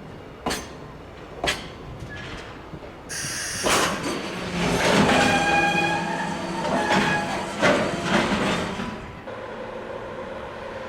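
Train at a station: two sharp clicks, then a sudden hiss of air about three seconds in, followed by about five seconds of a train running with wheel noise and several steady tones. The noise drops back about nine seconds in.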